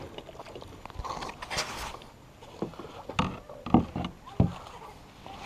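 Kayak paddle and plastic sit-on-top kayak being handled at the water's edge: a brief rush of water-like noise about one and a half seconds in, then three sharp knocks of paddle against hull about a second apart.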